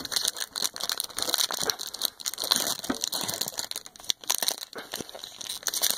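Foil wrapper of a Yu-Gi-Oh! Mega Pack booster crinkling and crackling as it is handled and torn open by hand, a dense irregular run of crackles with one sharper crack about four seconds in.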